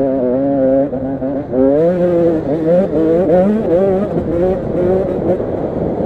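85cc two-stroke motocross bike engine revving hard, its pitch climbing and dropping several times as the throttle is worked and it shifts through gears.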